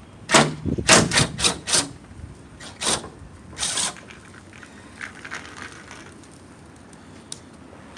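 Cordless impact gun with a 10 mm socket running in several short bursts, backing off nuts; the bursts come in the first four seconds, followed by faint handling sounds.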